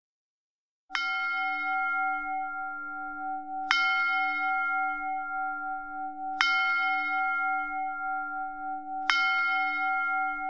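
A bell struck four times, the first about a second in and then roughly every two and a half seconds. Each strike rings on with several steady tones that overlap the next strike, one of them slightly pulsing.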